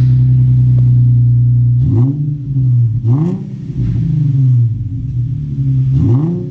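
Nissan 350Z's 3.5-litre V6 exhaust with the rear muffler deleted and the factory catalytic converters still in place. It idles, then is revved three times, about two, three and six seconds in, each rev rising and falling back to idle.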